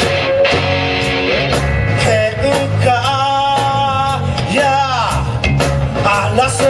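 Live rock band playing: drums keep a steady beat under bass and electric guitar, while a lead line bends and wavers in pitch through the middle.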